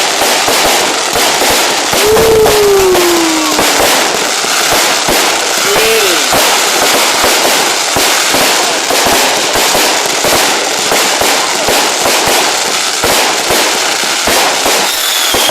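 Fireworks going off in a continuous barrage of crackling and popping. About two seconds in, a whistle falls in pitch, and a shorter one follows near six seconds.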